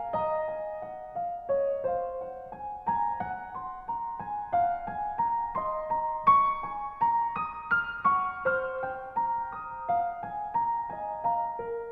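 Background music: a gentle keyboard melody of single struck notes, about three a second.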